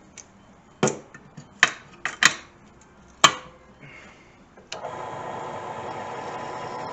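A few sharp clicks and knocks as the drill bit is set onto the hole, then about two-thirds of the way in an electric drill starts and runs steadily, drilling into the metal flange with a Black Widow bit.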